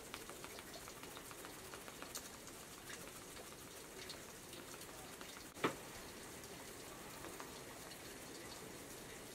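Faint soft dabbing of a makeup sponge bouncing liquid foundation onto the skin: a patter of small wet ticks. There is one sharper click a little past halfway.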